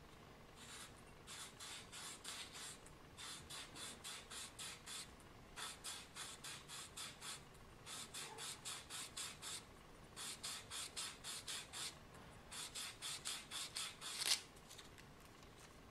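Small armature from a Bernina 830 Record sewing-machine motor being turned in the fingers, giving faint runs of quick rubbing ticks, about five a second, in bursts of a second or two with short pauses between. A sharper click ends the last run.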